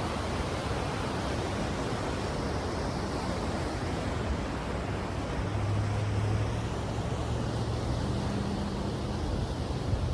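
Steady wash of ocean surf and wind. A low, steady hum joins about halfway through.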